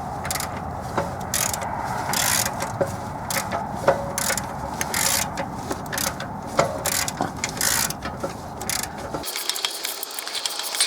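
Socket ratchet clicking irregularly as the crankshaft of a Dacia Logan engine is turned over by hand with the spark plugs out. A steady low hum underneath stops suddenly about nine seconds in.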